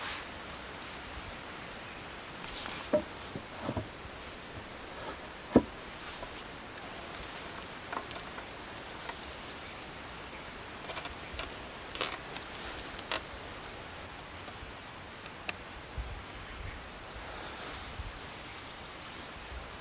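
Steady outdoor background hiss with scattered sharp knocks and clicks, the loudest about five and a half seconds in, and faint short high chirps now and then.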